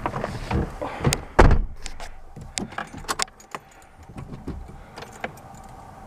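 Car-cabin handling noises: the driver's door of a Suzuki Jimny shutting with a loud thump about a second and a half in, then a run of sharp clicks and keys jangling as the ignition key is put in and turned on, the engine not yet running.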